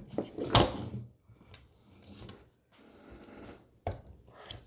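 Pistol handling noises: a sharp click, a louder knock about half a second in, then scattered lighter clicks and rattles as a Smith & Wesson M&P Shield 9mm is set down and its magazine is worked loose, the magazine sticking in the grip.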